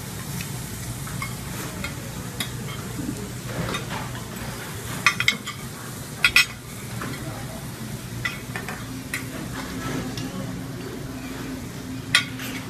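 Diced meat sizzling on a teppanyaki steel griddle while metal spatulas scrape and tap against the hot plate. Sharp metallic clacks come twice a little after five seconds in, twice around six seconds, and once near the end.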